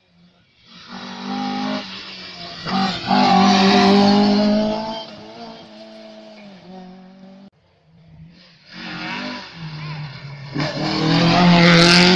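Rally cars passing at speed on a narrow lane, engines revving hard. Two loud passes, one after the other, with a brief silent break between them.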